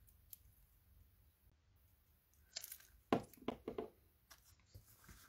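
Small scrap of paper being handled, with a quick run of short crinkles and crackles a little past halfway through.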